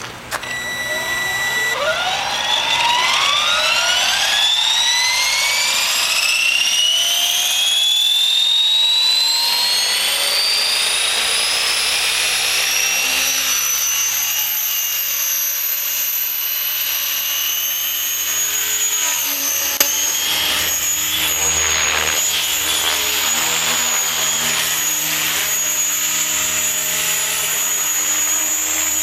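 Electric RC helicopter (Align T-Rex 550 with Edge 523 mm rotor blades) spooling up: after a brief steady tone about a second in, the motor and rotor whine rises in pitch for about ten seconds as the head speed builds. It then holds a steady high whine at flying speed.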